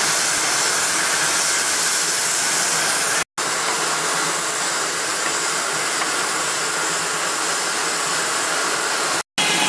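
Steam-powered sawmill running, a steady hissing noise with no distinct strokes or pitch. It cuts out abruptly twice, about a third of the way in and near the end.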